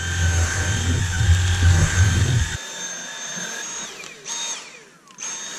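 Dyson cordless stick vacuum running with its mini motorised brush tool on fabric upholstery, a steady high motor whine. For about the first two and a half seconds a heavy low rumble runs under it and stops abruptly; twice near the end the whine sinks in pitch, cuts out and starts again.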